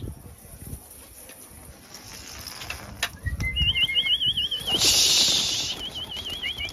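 A flock of domestic pigeons taking off, with a loud flurry of wing flapping about five seconds in. A high warbling whistle sounds twice, just before and just after the flapping.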